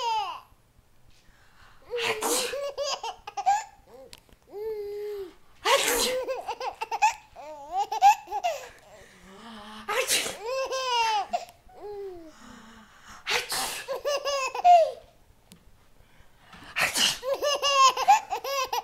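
A person sneezes five times, about every three and a half seconds. Each sneeze sets off a burst of baby laughter, a run of short high-pitched laughs.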